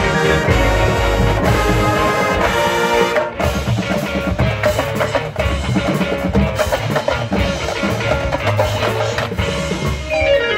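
Marching band playing: wind instruments and front-ensemble mallet percussion over drums, continuous and loud.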